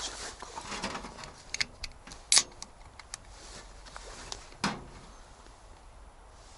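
A series of sharp clicks and knocks, about half a dozen, the loudest a little over two seconds in and a duller knock with a thud near the middle, like camp gear being handled.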